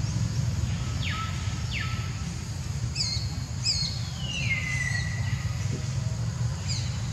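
Birds calling: several short down-slurred chirps and one longer falling whistle in the middle. Under them runs a steady low rumble of background noise.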